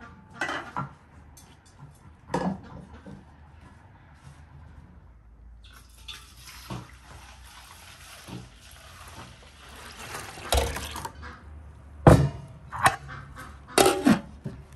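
Milk poured from an enamel pot into an aluminium pot, a steady splashing pour lasting about five seconds. Metallic clanks of the aluminium pot lid come before it, and louder clanks near the end as the lid is set back on the pot.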